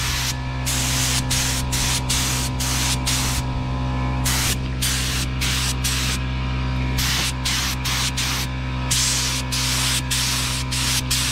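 Gravity-feed spray gun spraying paint in short hissing bursts, about one a second, as the trigger is pulled and released, over a steady low hum.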